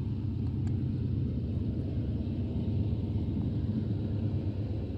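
Steady low rumble of an approaching Union Pacific freight train's lead consist of six GE and EMD diesel-electric locomotives, still some distance off.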